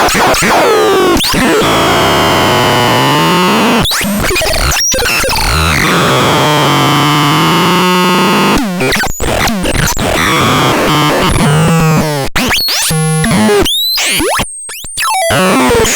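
Synthesizer playing harsh, noisy electronic tones with pitch glides that fall and rise. Near the end the sound is chopped up, with stuttering patterns and several sudden cut-outs.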